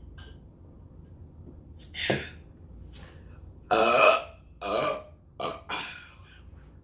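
A woman burping loudly, about five burps in a row, the longest and loudest about four seconds in.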